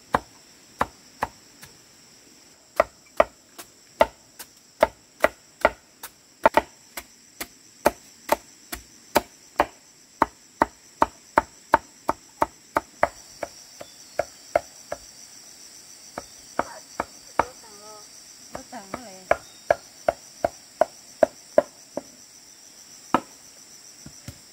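Knife chopping food on a cutting board: sharp knocks at about two to three a second, with a couple of short pauses. Steady insect chirring runs underneath and grows louder about halfway through.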